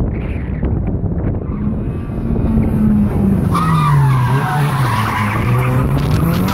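Nissan Silvia S14 drift car coming in and sliding past close, its engine note rising, falling and rising again with the throttle. From about three and a half seconds in, the tyres squeal loudly as the car drifts.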